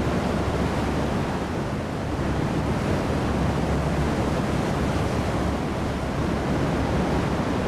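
Stormy sea: heavy waves breaking with wind blowing over them, a dense, steady rush of noise.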